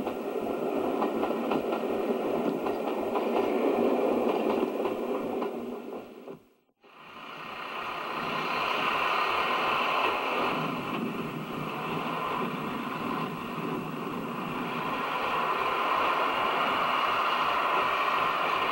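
Trains running past, heard through the hiss of old videotape: first a passing train, then the sound drops out briefly about six seconds in and builds back up as a steam locomotive hauls its coaches past.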